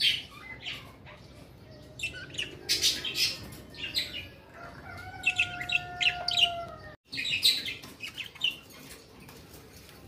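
Cockatiels in a wire cage chirping in short clusters of sharp calls, with wing flutters. The sound cuts out for a moment about seven seconds in.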